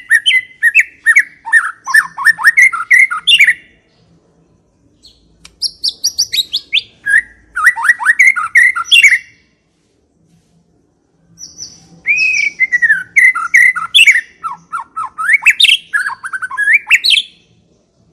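White-rumped shama (murai batu) singing loud, rapid phrases of sliding whistles and chattering notes. It sings in three long bursts separated by pauses of about two seconds.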